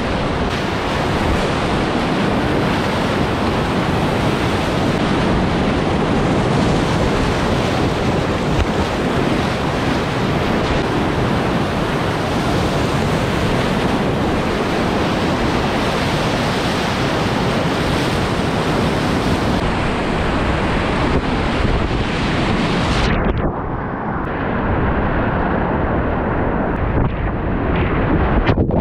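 Loud, steady rush of whitewater rapids churning around a whitewater kayak surfing in the river. Near the end the sound turns suddenly muffled, losing its hiss.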